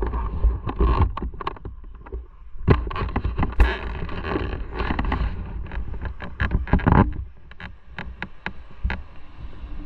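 Motorcycle ride heard from the bike: a low rumble with wind buffeting the microphone, broken by many irregular knocks and clicks.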